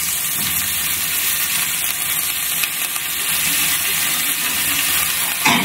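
Steady sizzle of sliced onion, tomato and green chillies frying in oil in an aluminium pan, as a handful of vallarai keerai (Indian pennywort) leaves is added to the sauté.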